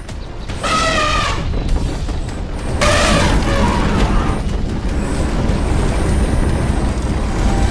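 Animated sound effect of a huge boulder rolling and grinding to a halt against a pushing truck: a deep, steady rumble. Two short pitched sounds cut in about a second in and again about three seconds in, with background music.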